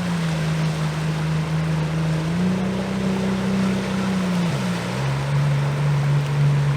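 A motor running with a steady hum, its pitch dropping slightly just after the start, rising again about two and a half seconds in, then dropping lower about four and a half seconds in.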